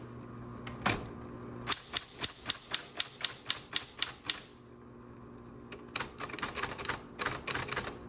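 Smith Corona Coronet Automatic 12 electric typewriter typing uppercase symbols, its type bars striking the platen. The strikes come in a quick even run of about five a second, then after a short pause a second, lighter and faster run, with the machine's motor humming steadily underneath.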